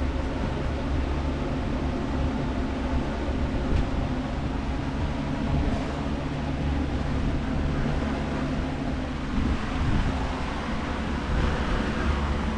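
A steady low mechanical drone with an engine-like hum under a noisy hiss, holding level throughout.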